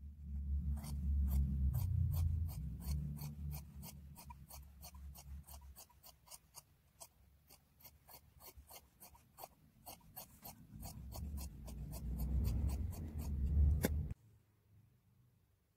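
Fabric scissors cutting through woollen checked cloth along a chalk line: a steady run of sharp blade snips, about three a second, that stops suddenly near the end. A low rumble sits under the snips at the start and again in the last few seconds before they stop.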